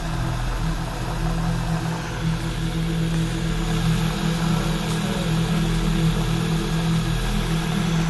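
A steady low droning hum made of several held low tones over a faint hiss, growing slightly louder after about two seconds.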